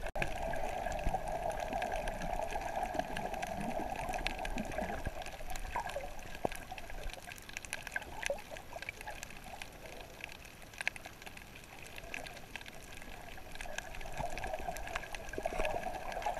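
Underwater sound through a camera in its waterproof housing: a muffled rushing of water that eases off in the middle and swells again near the end, with scattered sharp clicks and crackles throughout.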